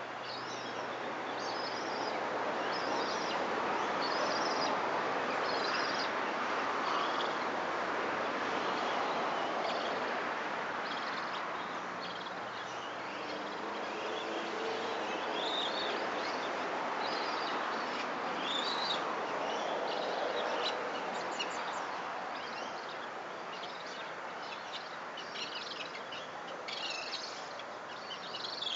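Birds chirping: many short, high-pitched calls scattered over a steady rushing background noise, with the chirps coming more often near the end.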